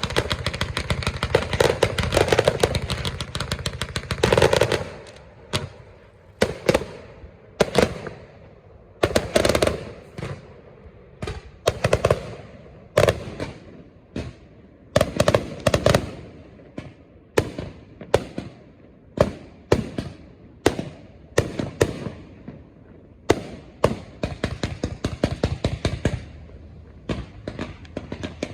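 Aerial fireworks going off: a dense volley of bangs and crackling for the first few seconds, then separate shell bursts about once a second, each followed by a short crackle.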